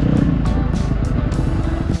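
Background music with a steady beat, mixed with a dirt bike engine running.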